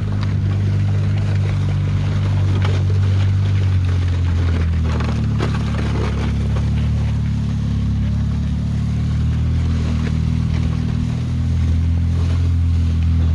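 A motor vehicle's engine running steadily with a deep hum, easing down slightly in pitch about four seconds in and rising again near the end, with faint scattered rattles.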